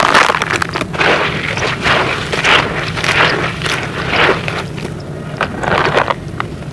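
Gritty sand-cement being crumbled and mixed: repeated crunching, grinding strokes about twice a second, with sharp little cracks among them and a short pause near the end.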